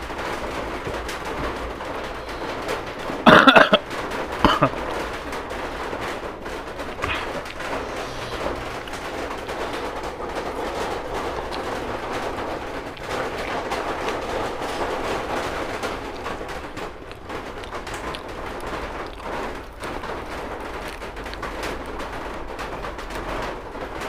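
Heavy rain falling steadily, a loud even hiss and patter. Two sharp, loud knocks come about three and a half and four and a half seconds in.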